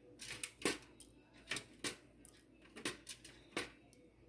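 Light clicks and knocks of hard kitchen items against a vessel, about six in all, the loudest a little under a second in.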